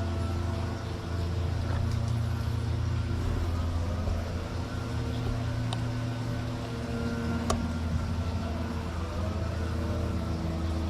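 A steady low mechanical hum, like an idling engine or running machinery, with one sharp click about seven and a half seconds in.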